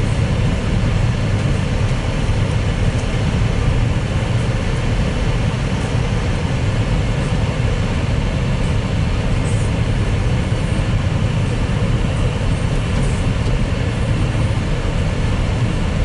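Steady driving noise inside a Jeep's cabin on a snow-covered road: a constant low rumble of engine and tyres that holds even throughout.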